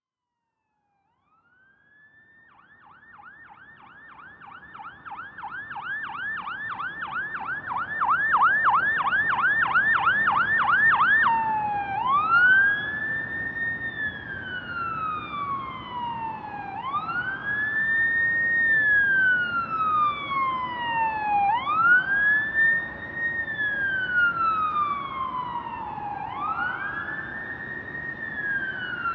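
Emergency-vehicle electronic siren growing louder over the first several seconds. It runs a fast yelp of about three sweeps a second, then switches about eleven seconds in to a slow wail that rises quickly and falls slowly, repeating every four to five seconds.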